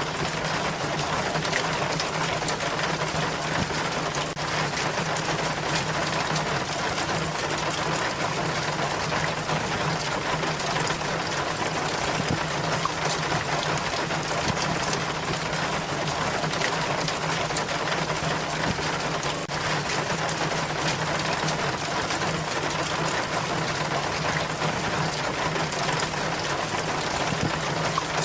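Rainwater running and splashing down a rain chain, a steady dense patter that stays even throughout, with a steady low hum underneath.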